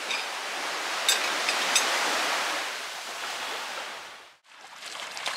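Gentle sea waves washing onto a sandy beach: a steady rushing noise that dies away about four seconds in and comes back just before the end.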